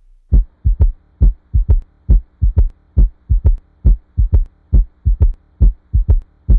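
Heart auscultation recording with a third heart sound (S3 gallop): each beat is a triplet of short low thuds, S1 and S2 followed closely by the S3, repeating a little more than once a second over a faint hum. An S3 can be normal under age 40 but is pathological over 40, as in ischaemic heart disease, dilated cardiomyopathy, or aortic or mitral regurgitation.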